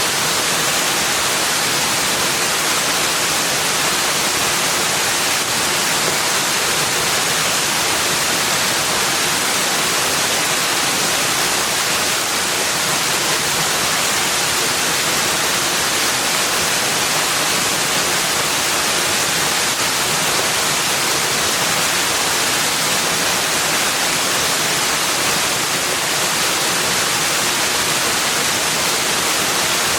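Rushing water, a steady even hiss with no separate splashes, calls or changes.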